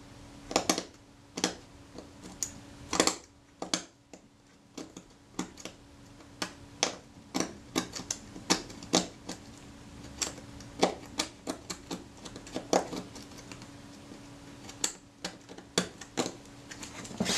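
Scalpel blade scraping along the metal of a Kodak Retina IIa camera panel, pressed hard against the metal to split the old leatherette away: a run of short, sharp scrapes at an irregular pace, roughly two or three each second.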